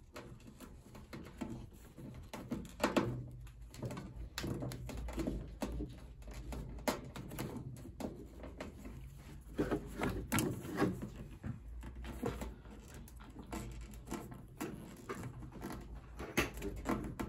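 Irregular clicks, taps and rubbing from hands working a length of slit clear plastic tubing onto a sharp edge of a spin dryer's casing, over a low steady hum.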